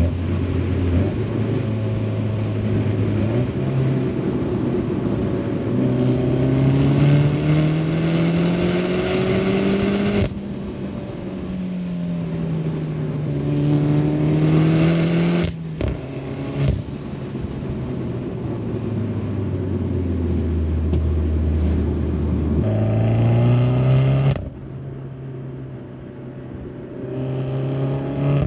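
Peugeot 308 GTi's 1.6-litre turbocharged four-cylinder heard at the exhaust tailpipe under way: the engine note climbs in pitch as it pulls through the revs, drops away sharply when the throttle is lifted, and climbs again, with two short sharp cracks in the middle. Near the end the sound turns quieter and duller.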